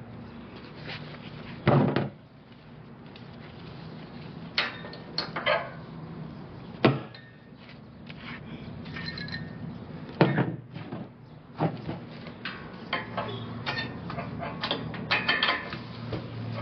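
Metal clanks, knocks and rattles of truck-unloading equipment being handled and set up by hand at the trailer's back end. There are several sharp knocks, the loudest about two, seven and ten seconds in, with lighter rattling between, over a steady low hum.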